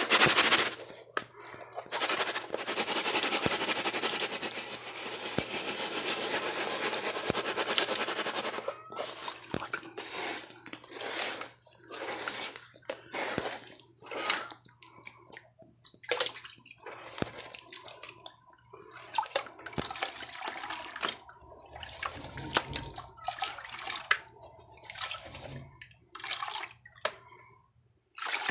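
Water splashing and sloshing as a gold pan of river gravel and black sand is dunked, stirred by hand and swirled in a tub of water to wash the material down. A few seconds in there is a steady rush of water lasting about six seconds, followed by repeated short splashes.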